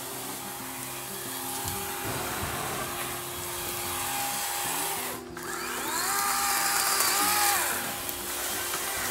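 Electric chainsaw running with a steady whine, cutting out briefly about five seconds in, then spinning up again, holding, and winding down near the end. Background music with held low notes plays underneath.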